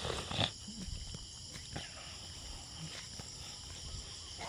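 Steady high-pitched chorus of insects in the vegetation, with a few soft knocks.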